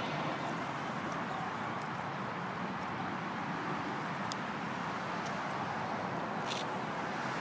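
Steady hum of road traffic in the open air, with a couple of faint ticks.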